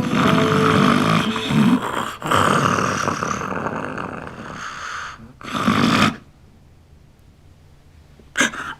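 A person snoring heavily in three long snores: the first about two seconds long, the second longer and fading away, the third short. The snoring stops about six seconds in.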